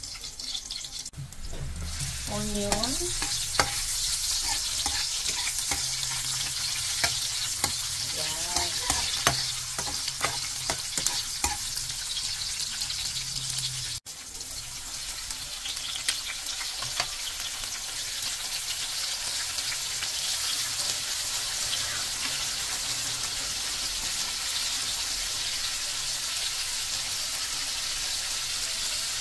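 Garlic and onion sizzling in hot oil in a metal wok, with a metal ladle scraping and clicking against the pan as they are stirred, the clicks mostly in the first half. The sound cuts out briefly about halfway through, then the steady frying sizzle goes on.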